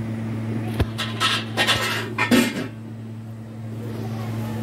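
Metal kitchenware clattering against a cooking pot: a click, then a quick run of sharp clinks and knocks over about a second and a half, over a steady low hum.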